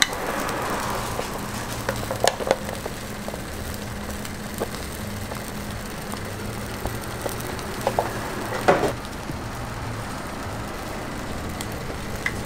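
Egg batter sizzling on a flat-top griddle inside square steel frames, a steady hiss over a low hum, with a few sharp clinks and scrapes of a steel ladle against the metal frame, the loudest just before nine seconds in.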